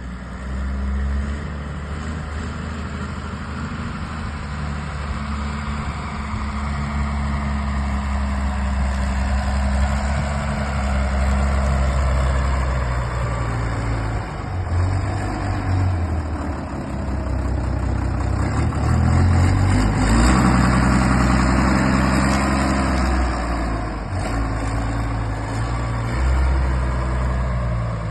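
Hamm GRW 10 trench roller's engine running as the compactor works: a continuous low machine drone whose pitch shifts now and then, growing louder for a few seconds about two-thirds of the way through.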